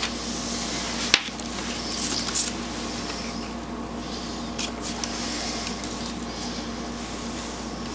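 Handling noise as hands clip alligator-clip test leads and wires onto a small electronics circuit: a sharp click about a second in, then light rubbing and scraping of the leads, over a steady background hum.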